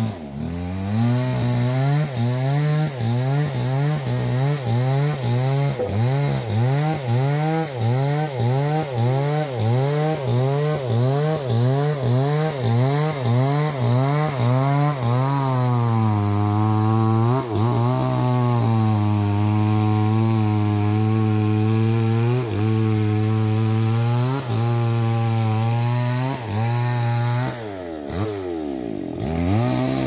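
A small engine running, its pitch rising and falling about twice a second, then holding steadier from about halfway with slower swells, and dropping away near the end.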